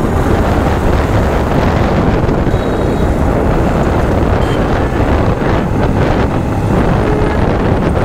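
Loud, steady wind rushing over the microphone of a moving vehicle, with road and engine noise underneath.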